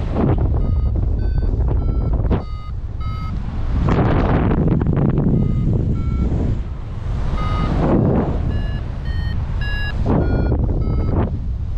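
Paragliding variometer beeping in a string of short tones whose pitch keeps shifting, going higher about eight to ten seconds in, the sign of the glider climbing in lift. Wind rushes and gusts over the microphone.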